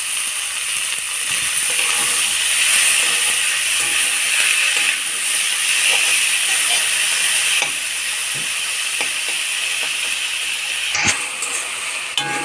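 Boiled banana flower sizzling as it fries in hot mustard oil with onion and tomato in a kadai, a steady hiss with scattered small clicks and knocks from stirring. One sharper knock comes near the end.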